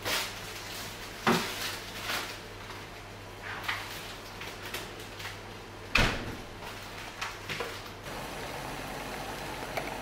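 Indesit fridge being used: knocks and clinks as things are taken out, and the door shut with a thud about six seconds in, the loudest sound. Near the end a steady hiss of water boiling in a pan takes over.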